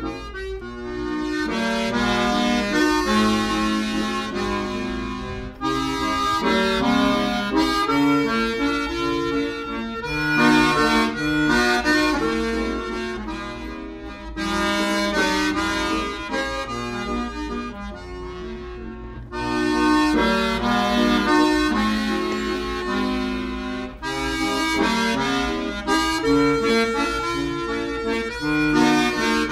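Instrumental background music with held notes and chords, in phrases that swell and dip every few seconds.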